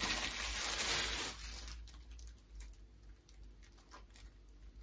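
Plastic packaging bag rustling and crinkling as a kitchen utensil is handled in it, for about a second and a half, then dying away.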